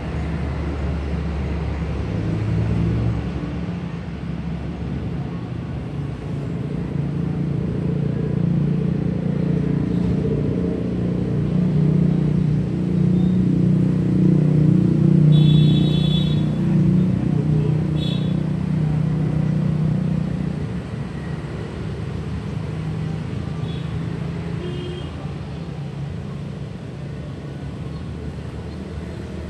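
Street traffic: a motor vehicle's engine rumbling, swelling to a peak midway and then fading as it passes slowly. A couple of brief high chirps sound about halfway through.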